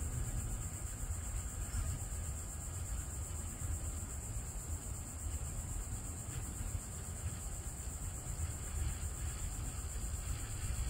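Steady high-pitched chorus of insects buzzing, with a low rumble of wind on the microphone underneath.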